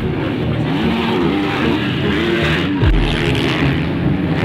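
Motocross motorcycle engines revving hard, their pitch rising and falling again and again as the riders throttle over a jump. A brief low thump comes about three seconds in.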